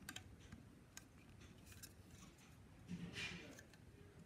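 Near silence with a few faint clicks near the start and about a second in, and a brief rustle about three seconds in: a hollow plastic model airliner being handled and set onto its plastic stand.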